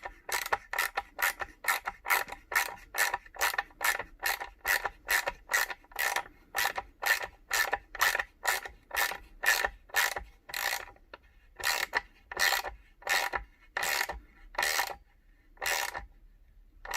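Socket ratchet wrench clicking as it drives a threaded insert into a wooden skateboard deck, a steady run of about three clicks a second. About ten seconds in the clicks slow and space out to roughly one a second, then stop.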